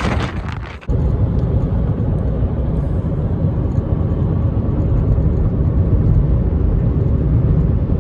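A car driving: a steady low rumble of engine and road noise. A brief rush of wind noise cuts off abruptly about a second in.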